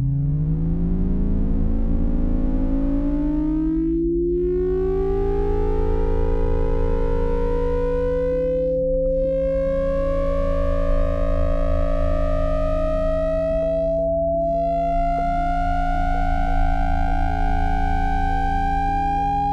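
Electronic synthesizer music: a tone with overtones glides steadily upward in pitch, quickly at first and then more gently, over held drone tones and a low pulsing bass.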